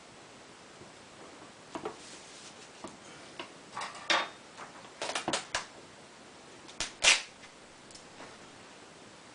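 Gorilla Tape being pulled off the roll and torn, in a series of short sharp rips and crackles, the loudest about seven seconds in.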